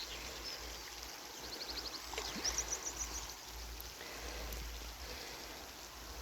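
Outdoor bankside ambience: a steady hiss with low wind rumble on the microphone, and small birds chirping, with a couple of quick trills about two seconds in.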